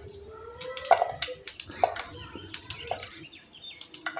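Knife cutting a garlic clove into small pieces: several sharp taps, roughly one a second, with faint bird chirps in the background.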